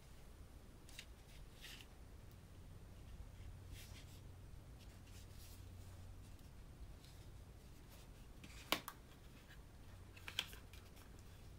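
Hands handling small paperboard cosmetic boxes: soft scattered rustles and taps of card. A sharp tap of a box comes about three-quarters of the way through, and a smaller double tap near the end.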